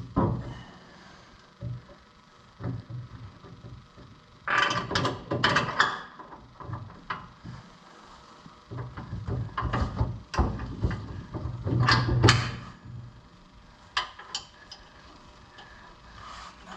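Clunks and knocks of a rear suspension control arm being handled and fitted into its mounts, in several short bursts with pauses between.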